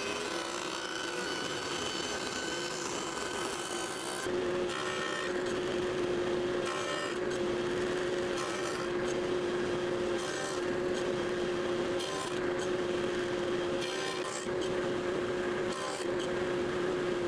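Table saw running with a steady hum while its blade cuts wood: first a tenon cut with the workpiece held upright in a tenoning jig, then a board pushed across the blade.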